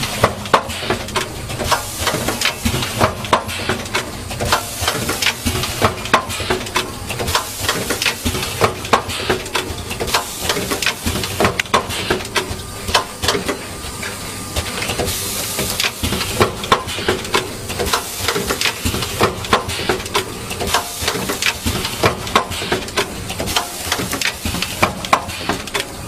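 Automated connector assembly machine running, its pneumatic cylinders and indexing mechanism clacking rapidly, several sharp clicks a second, over a steady hiss of compressed air. There is a longer burst of air hiss about halfway through.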